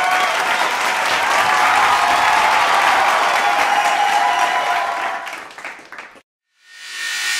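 Crowd applauding, loud at first and fading away about six seconds in. After a brief silence a new sound swells up near the end.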